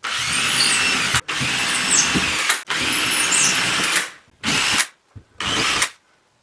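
Power drill running: three long runs of a second or more with barely a break, then two short bursts, as it bores holes for ceiling anchors.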